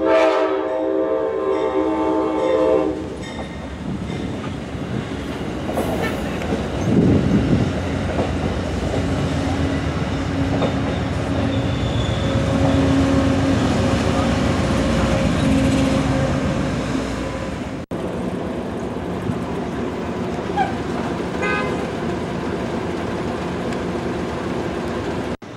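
An Amtrak passenger train's diesel locomotive blows its horn as it arrives, a loud chord held for about three seconds. The train then runs past on the rails with a steady heavy rumble. The sound breaks off abruptly near the end of the third quarter and picks up again with the train still running.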